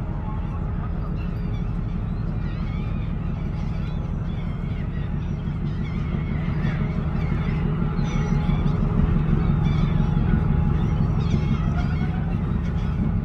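Low, pulsing rumble of a large container ship's engine and propeller as it passes close by, growing louder as the stern draws level. Birds call over it throughout.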